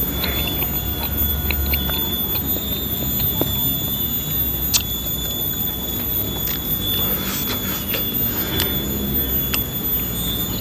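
Close-up chewing of crispy dendeng balado (chili beef jerky), with scattered crunches and clicks, over a steady high-pitched whine and a low rumble.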